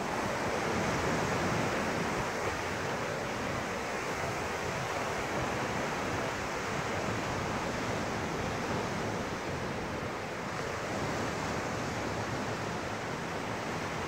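Small surf breaking and washing up a sandy beach, a steady rush, with wind buffeting the microphone.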